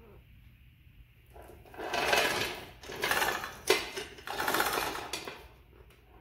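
Power wrench running in three short bursts of rapid mechanical chatter, spinning out the bolt that holds a Craftsman 12-inch lathe's headstock to its bed.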